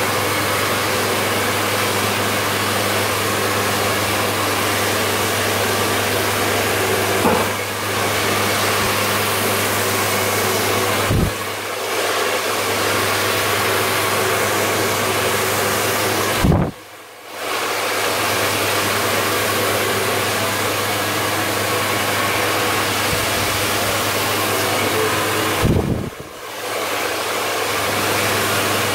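Handheld electric hair dryer blowing steadily, a hissing rush of air over a steady motor hum. It dips briefly a few times, most deeply about 17 and 26 seconds in.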